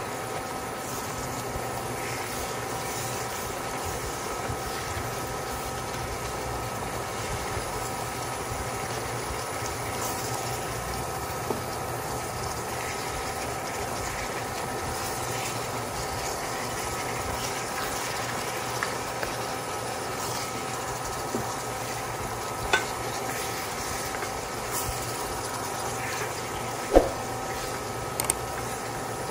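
Pechay and tofu sizzling and simmering in their juices in a stainless steel pan while a silicone spatula stirs them, over a steady hum. A few light knocks of the spatula against the pan, the sharpest near the end.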